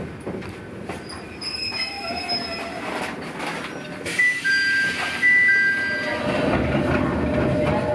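Ichibata Electric Railway train running with metal wheel squeal: a series of high, steady squeal tones that come and go over the running noise, louder from about four seconds in, as the train slows into a station.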